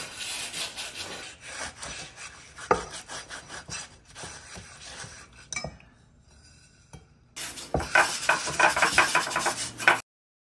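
Half a lemon scrubbing coarse kosher salt around the inside of a cast iron skillet: a gritty, scraping rub in quick strokes that scours the pan's worn surface. About two-thirds through it goes quiet while more salt is tipped in, then the scrubbing comes back faster and louder before cutting off abruptly.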